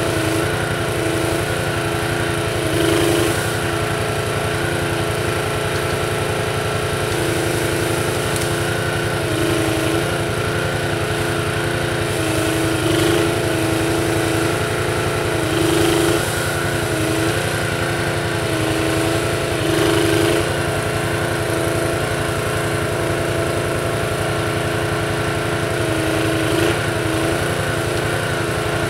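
Small petrol engine running steadily while the Jussi 400 hydraulic grapple crane on the ATV is worked, its sound swelling briefly about half a dozen times.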